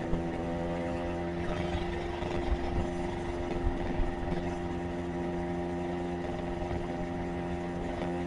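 Motorcycle engine running at a steady cruising speed, with road and wind noise.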